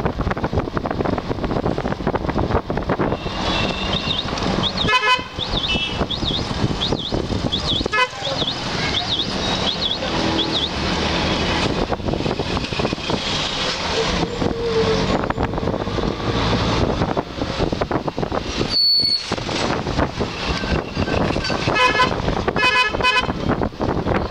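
Ride in an auto-rickshaw: its small engine running with road and wind noise, and vehicle horns tooting in short blasts, once about five seconds in, again around eight seconds, and several times near the end.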